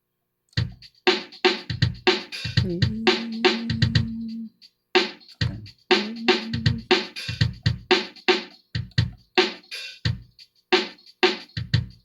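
Music with a drum kit starting about half a second in: a steady beat of kick drum and snare strikes, with a held low note twice.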